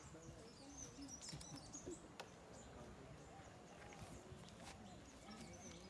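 Quiet outdoor ambience, near silence: faint murmured voices, a few small birds chirping, and a couple of soft clicks.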